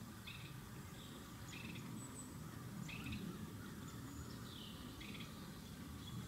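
Faint bird calls: about half a dozen short chirps, irregularly spaced, some slurring in pitch, over a low steady background rumble.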